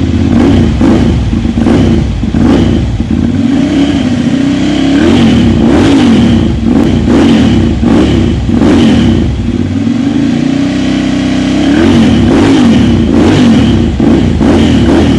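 Ducati Monster 795's air-cooled L-twin blipped repeatedly through an aftermarket carbon slip-on exhaust, rising and falling back to a lumpy idle about once a second.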